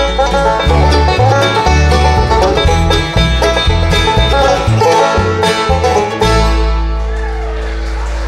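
Live bluegrass band, banjo, mandolin and acoustic guitars, playing the instrumental close of a song, then ending on a final chord about six seconds in that rings on and slowly fades.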